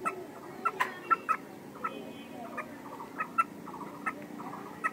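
Hen clucking in short, sharp calls, about a dozen at irregular intervals.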